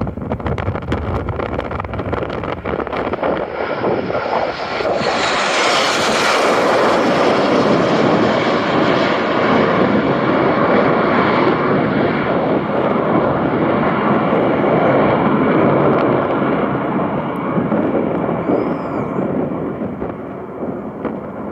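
Formation of BAE Hawk T1 jet trainers flying overhead, their turbofan engines building to a loud rushing jet noise with a sharp high hiss about five seconds in, holding strong, then fading slowly near the end.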